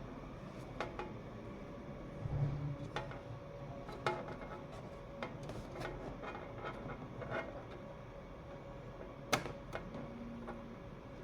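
Light clicks and taps of hands fitting cables and parts inside a desktop computer case. There is a duller knock about two and a half seconds in and a sharp click near the end.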